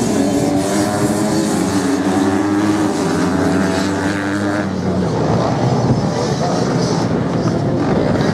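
Several off-road racing motorcycles running at speed on sand, their engines revving and changing pitch. About five seconds in, the clear engine note gives way to a rougher, noisier sound.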